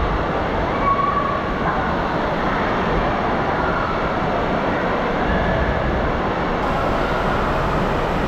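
Indoor water park din: a steady rush of water down the slides and echoing hall noise, with a few faint distant voices.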